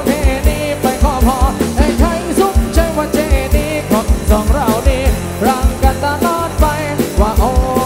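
Loud live Isan-style band music from a rot hae sound truck. A fast, steady kick-drum beat runs under a wavering, bending lead melody.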